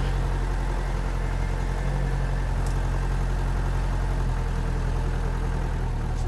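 A 4x4 jeep engine running steadily at low revs, with a slight shift in pitch about four seconds in.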